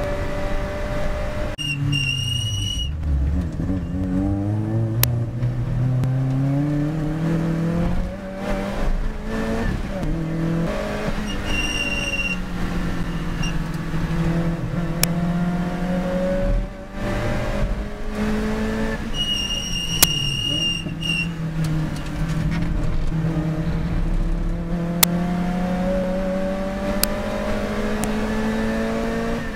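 Lotus Elise Cup R's 1.8-litre four-cylinder engine heard from inside the cockpit under racing load: it repeatedly rises in pitch through the gears, then drops sharply on lifts, downshifts and braking. A high steady squeal comes in three times, and there are a few sharp clicks.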